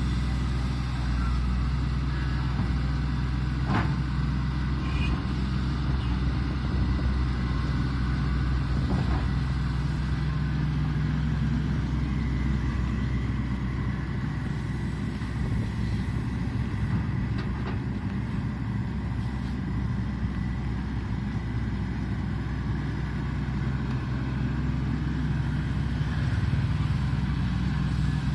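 Matador Shantui ME210LC-1 excavator's diesel engine running steadily with a low hum, with a couple of faint knocks about four and nine seconds in.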